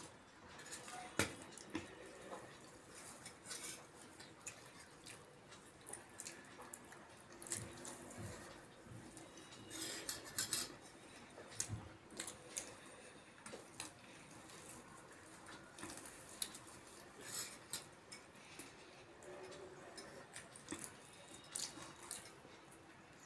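Steel spoons clinking irregularly against steel bowls and plates, with sipping and eating sounds as sambhar is spooned up and drunk from a steel bowl.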